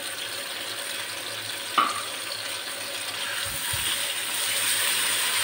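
Freshly added sliced onions sizzling in hot oil in a karahi as they begin to fry, stirred with a silicone spatula; the sizzle grows a little louder toward the end. A single sharp clink about two seconds in.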